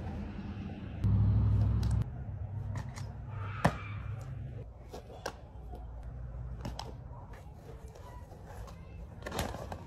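Sharp slaps of kicks and punches landing on sparring gloves and headgear, a handful of separate hits with the loudest about four seconds in. A loud low rumble lasts for about a second near the start.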